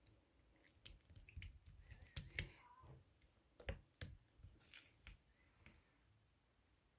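Clear slime being worked by hand, giving faint scattered clicks and small pops, the loudest about two and a half seconds in.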